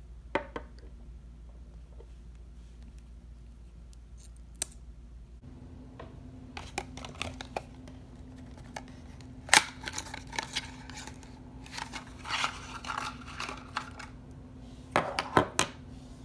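Small plastic makeup tubes and packaging being handled on a tabletop: scattered clicks, taps and scratchy rustles. There is a sharp click about ten seconds in and a cluster of clicks near the end.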